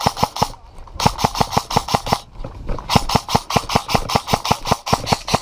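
Quick, regular footfalls of a person running on a leaf-and-gravel forest path, with airsoft gear and rifle rattling along, about six or seven strikes a second, broken by a few short pauses.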